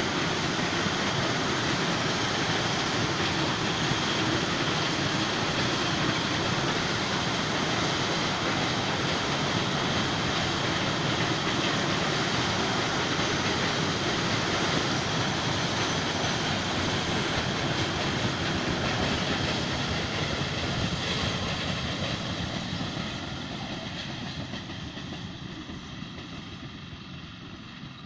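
Sugar cane train of cane bins rolling past, a steady noise of wagons on the rails that fades over the last several seconds as the end of the train draws away.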